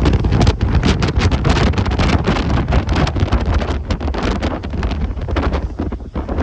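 Strong wind buffeting the microphone in a continuous rumble with crackling gusts, over the rush of rough sea surf.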